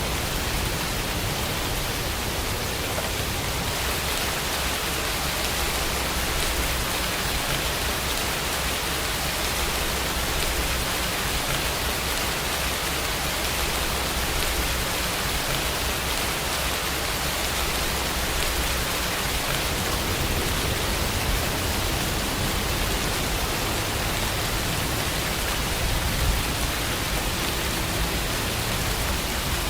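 Steady, even rainfall, a continuous hiss of rain with a low rumble beneath it.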